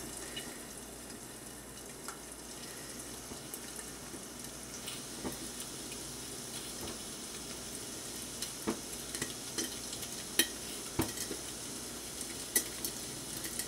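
Eggs frying in butter in a thin, lidded stainless steel pan over a Coleman Dual Fuel 533 camp stove: a steady, quiet sizzle and hiss, with a few scattered light clicks. The heat is too high for the thin pan.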